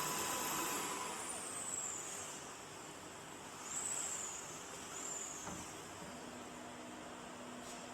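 CNC router axis motors running as a bit travels to the tool-length sensor: faint high whines that glide down in pitch as the axes slow, about a second in and twice more around four to five seconds, with a low steady hum setting in near the end.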